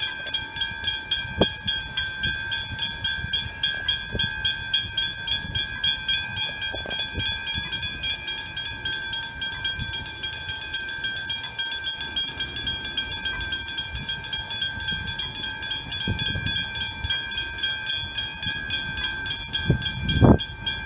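Westinghouse hybrid level-crossing bells ringing steadily in rapid, even strikes, signalling that the crossing is active with its booms down. Occasional low thumps sound underneath, the loudest near the end.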